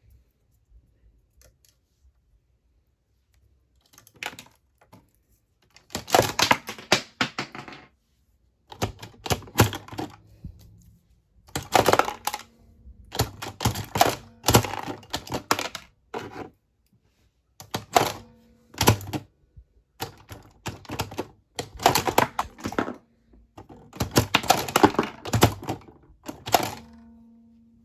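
Packaging being opened and handled: repeated bursts of crackling and clicking, each a second or two long, with short pauses between them, starting about four seconds in.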